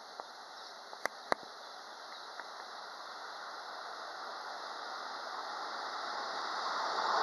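Approaching freight train hauled by an electric locomotive: a noise of wheels on rail that grows steadily louder. Two sharp clicks come about a second in.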